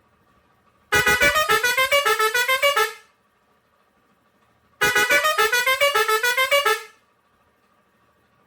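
Pioneairs 632S six-trumpet digital air horn playing a rapid run of short pulsing notes that climb in pitch over and over for about two seconds, then the same pattern again after a two-second pause.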